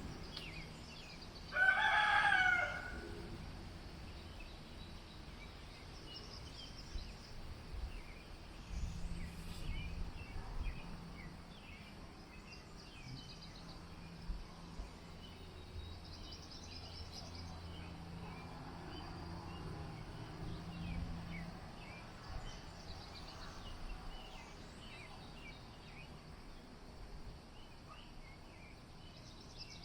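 A rooster crows once about two seconds in, the loudest sound, while small birds chirp faintly throughout. A faint low hum is there from about nine seconds in until about twenty-one seconds.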